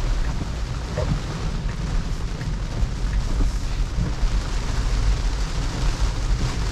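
Steady road and tyre noise inside a Tesla's cabin on a wet road, a low rumble with rain hiss over it.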